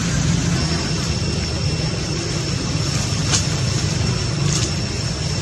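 Steady low rumble, with a thin high steady whine coming in about half a second in and two short clicks near the middle.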